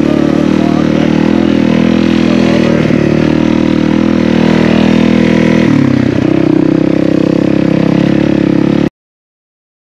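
Honda CRF250L's 250 cc single-cylinder four-stroke engine running steadily as the dirt bike rides along at low speed, loud and close to the microphone. It cuts off suddenly near the end.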